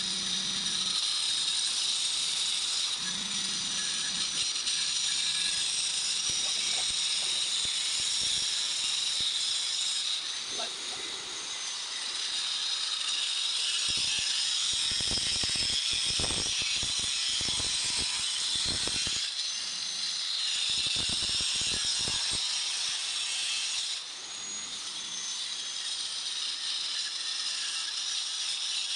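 Handheld angle grinder with a stone-cutting blade running through a marble slab: a steady high whine with a grinding hiss, which eases off about four-fifths of the way through. A run of low knocks comes in the middle.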